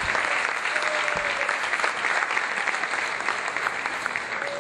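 Large seated audience applauding, many hands clapping, dying away near the end.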